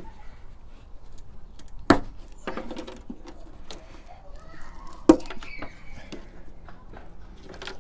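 Clips on a van's side step being worked loose: a run of sharp knocks and clicks, the two loudest about two seconds in and about five seconds in, with lighter taps between.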